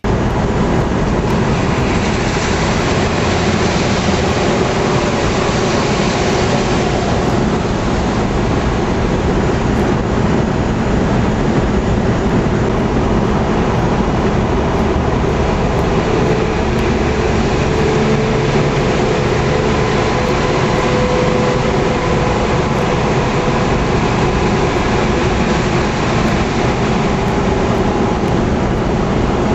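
Steady engine, tyre and wind noise heard inside a semi truck's cab while it drives at highway speed.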